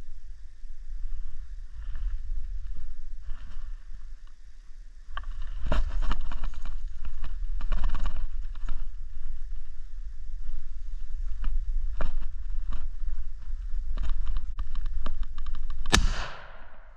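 Rustling and handling noise as a deer-hunting gun is raised, then a single loud gunshot near the end that rings off through the woods and fades.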